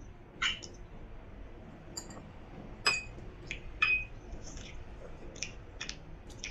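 Cutlery clinking against ceramic tableware: several light taps, two of them ringing briefly about three and four seconds in.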